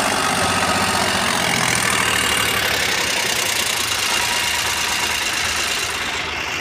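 Swaraj tractor's diesel engine running steadily under load while it hauls a heavily loaded trailer through soft field soil.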